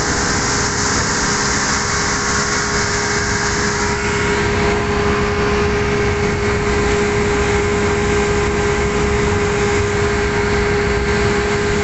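Speedboat engine running steadily at speed, a constant hum over the rush of water and rain. About four seconds in, the high hiss of water and wind drops away as the sound moves inside the enclosed passenger cabin.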